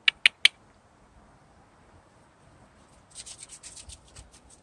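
Three short, sharp squeaks in quick succession right at the start, then about a second of footsteps crunching in deep snow a few seconds in.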